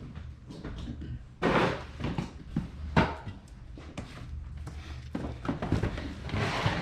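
Cardboard toy boxes being handled and set down on shelving: a string of knocks and rustles, with louder thuds about one and a half seconds in and again about three seconds in.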